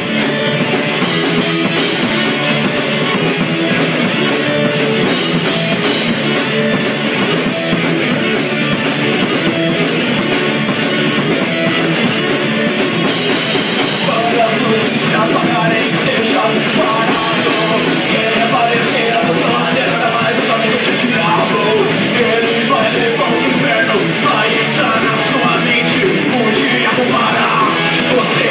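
Live rock band playing: electric guitars, bass guitar and drum kit at full volume, with a man starting to sing into the microphone partway in.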